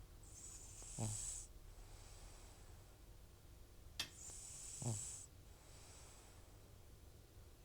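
Old cat snoring in its sleep: two slow breaths about four seconds apart, each a hiss ending in a short snore note that drops in pitch, with a small click just before the second. The snoring comes with the cat's chronic runny-nose and sneezing trouble, which returns whenever its medication stops.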